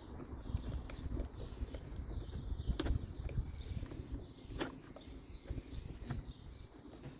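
Hand tool and metal parts clicking and knocking as screws on a leaf blower's engine are tightened down, with two sharp clicks about three and four and a half seconds in.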